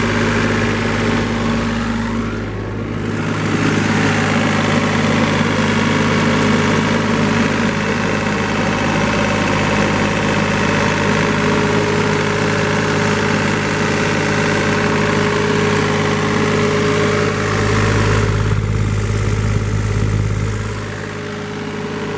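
Yanmar 3TNV84 three-cylinder diesel engine of a John Deere 3225C mower idling steadily.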